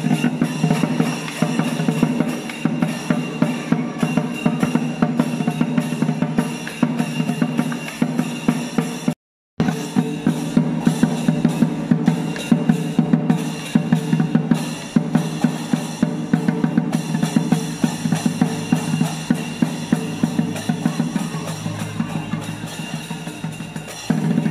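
Chinese lion dance drum beaten in a fast, unbroken run of strokes, with cymbals ringing over it. The sound cuts out for a moment about nine seconds in.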